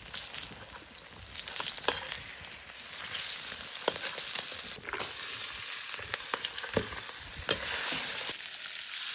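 Dried fish pan-frying in oil over low heat: a steady sizzle, with a few sharp clicks scattered through, growing somewhat louder near the end.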